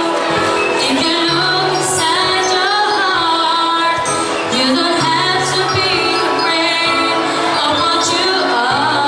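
A young woman singing a slow song into a handheld microphone over instrumental accompaniment, her voice bending and gliding between held notes.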